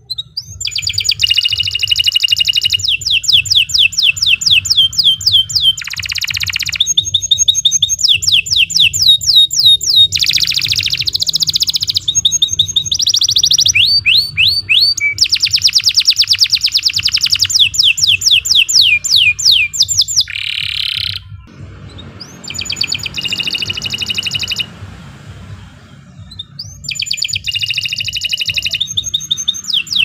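Domestic canary singing a long song made of rapid trills, each a fast run of repeated notes that switches to the next run. It breaks off for about a second around two-thirds of the way through, sings a short phrase, pauses again for about two seconds, then starts up again near the end.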